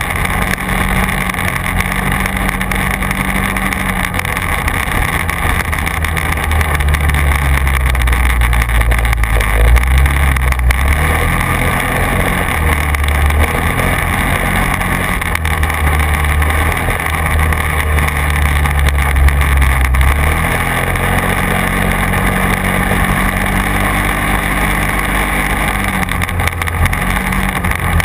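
Quad bike engine running under way, its pitch stepping up and down with the throttle. It is loudest between about 8 and 20 seconds in.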